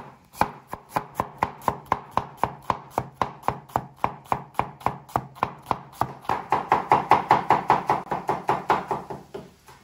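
Kitchen knife finely chopping onions, a steady run of quick strikes about four a second, louder for a couple of seconds in the second half and stopping just before the end.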